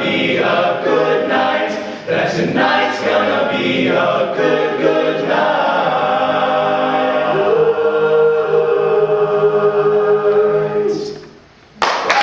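An a cappella vocal group sings the song's closing line over a steady beat, then holds a long final chord that cuts off about eleven seconds in. Audience applause breaks out just before the end.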